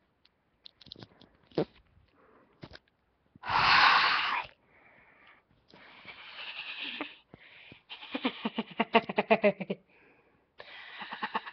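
A person's breathy vocal sounds: a loud, noisy burst lasting about a second, then a few seconds later a quick run of short voiced pulses, with scattered faint clicks between.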